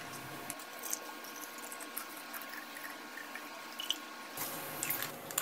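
Oil being poured through a funnel into a glass bottle packed with herbs: a soft, steady trickle of liquid filling the bottle, with a few light clicks near the end.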